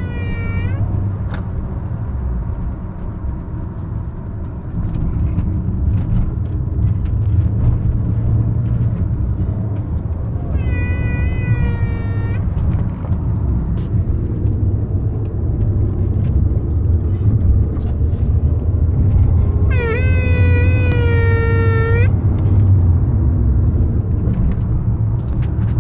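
A 2000 VW New Beetle's 1.8 turbo four-cylinder drive, a steady low engine and road rumble, with a high whine that rises and then holds for about two seconds, three times: just at the start, about ten seconds in and about twenty seconds in. The whine comes on under acceleration; the owner says it appears only once the engine is warm and seems to cost power.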